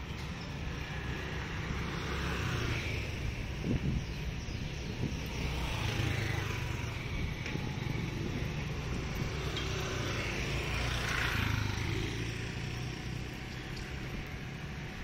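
Motor scooter and street traffic heard while riding: a steady engine and road rumble, with scooters and cars passing close by and wind buffeting the microphone in slow swells.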